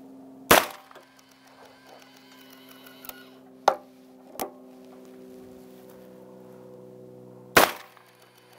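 Two gunshots from a Taylor's & Company Cattleman single-action revolver in .44 Special, fired from a Ransom Rest about seven seconds apart. Between them come a few sharp metallic clicks as the revolver is reset in the rest and its hammer cocked for the next shot.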